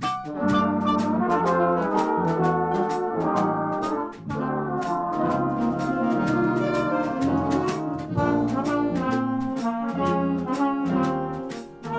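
Jazz big band music: a saxophone section plays a harmonised line over piano, bass and drums, with a steady drum and cymbal beat.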